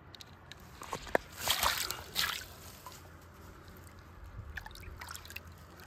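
Water sloshing and splashing close by, with two louder splashes about one and a half and two seconds in, among small clicks and drips.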